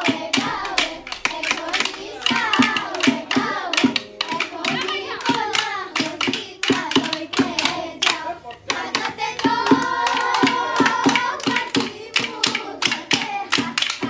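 Women and children singing a Bihu song together over a fast, steady clapping beat of about four strikes a second, struck on split-bamboo toka clappers and hands.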